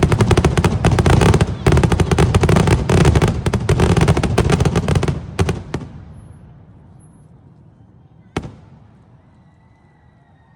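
Aerial fireworks: a rapid barrage of many bangs and crackles for about five seconds, then a few separate bangs, a last single bang about eight seconds in, and the noise dying away.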